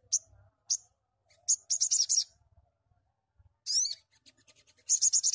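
Male olive-backed sunbird calling: a few short, sharp, high-pitched chirps, then three quick bursts of rapid high notes.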